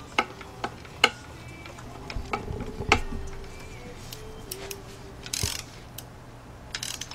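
Sparse light clicks and knocks of a spark-plug socket on a long extension being worked down into a spark-plug well, with a couple of short scraping rustles in the second half.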